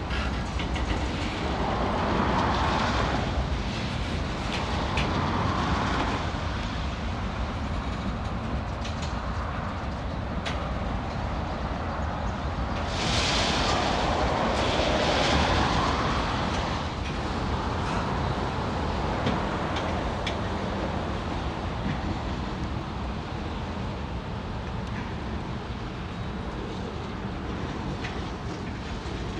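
Freight train's tank cars and covered hoppers rolling past: a steady rumble of steel wheels on rail with scattered clicks over the rail joints. About midway it grows louder and hissier for a few seconds.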